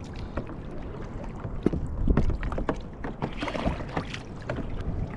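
Wind buffeting the microphone and choppy water slapping around a plastic sit-on-top kayak, with scattered knocks and taps on the hull, loudest about two seconds in.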